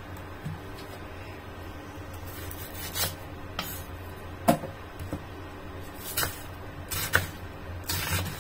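Kitchen knife cutting through a whole onion and knocking against a wooden chopping board. It gives a series of sharp, uneven knocks that begin about three seconds in, the loudest near the middle.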